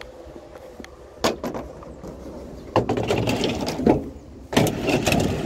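Curbside patio furniture being picked up and loaded: a sharp knock about a second in, then two stretches of clattering and scraping, each about a second long, the second near the end.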